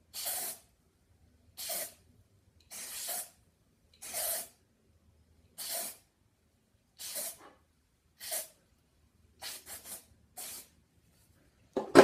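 Aerosol can of Batiste dry shampoo sprayed at the hair roots in about ten short hissing bursts, roughly one every second or so, with three quick ones close together near the end. A louder thump comes just before the end.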